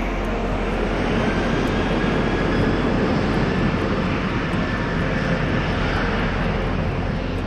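Jet engines of taxiing airliners: a steady rushing noise that swells a little through the middle and eases toward the end.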